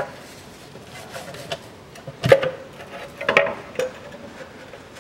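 Metal automatic transmission oil pan of a 2008 Mitsubishi Pajero being freed from its sealant and lowered by hand: a few scattered metallic knocks and scrapes, the loudest a little over two seconds in and a short cluster around three and a half seconds.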